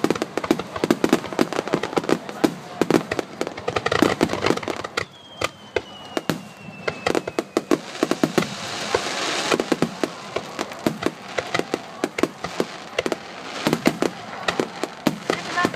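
Fireworks display: a dense, rapid barrage of bangs and pops. About five seconds in, a thin whistle glides down in pitch over a couple of seconds. Around eight to nine seconds a hiss swells, then the rapid bangs carry on.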